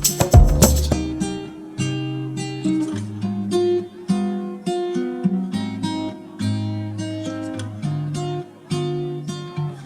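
Background music: acoustic guitar plucking and strumming, after a louder beat in the first second.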